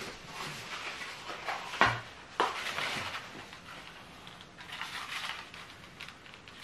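Corrugated cardboard wrapping rustling and crinkling as it is handled and pulled from around a bottle, with a couple of sharp knocks about two seconds in.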